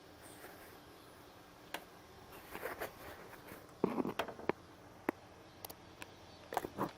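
Faint, scattered clicks and knocks, some with short scraping or rustling sounds, against quiet room tone.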